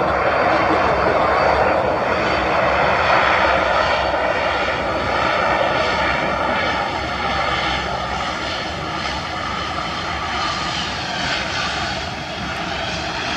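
Aircraft engines running: a steady rush with several high whining tones, easing a little after the first few seconds.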